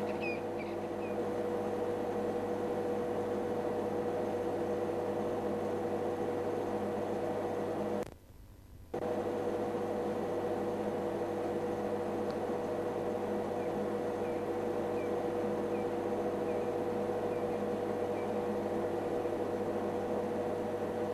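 Steady low hum over hiss, cutting out completely for about a second near the middle, with a few faint, high, evenly spaced chirps at the start and again later on.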